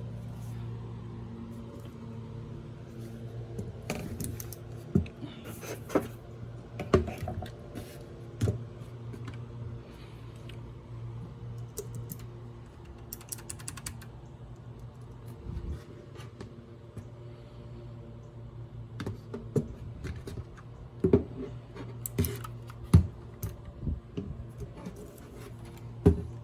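A steady low hum with irregular sharp clicks and knocks scattered over it, some single and some in quick clusters.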